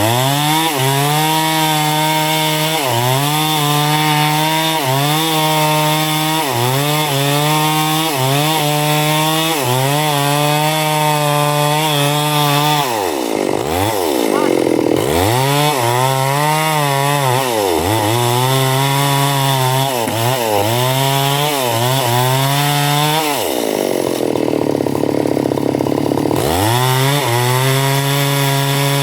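Chainsaw running, its engine pitch dipping and climbing back again and again as the chain bogs down and recovers, with deeper drops about halfway through and again near the end.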